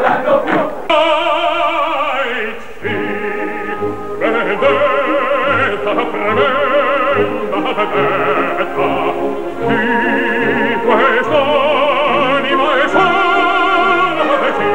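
Opera singing with orchestra: a voice with wide vibrato on a string of held notes. It cuts in over crowd chanting about a second in.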